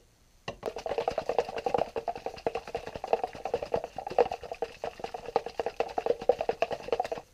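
Lidded plastic jar of isopropyl alcohol shaken hard by hand, the liquid sloshing and rattling inside as a resin-printed part is washed clean. It starts about half a second in and stops suddenly near the end.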